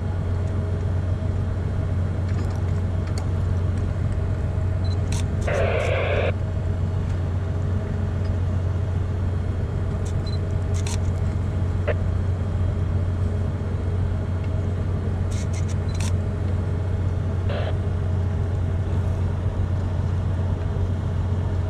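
Steady low machinery hum of the ship, unchanging throughout, with a short burst of hiss about six seconds in and a fainter one later.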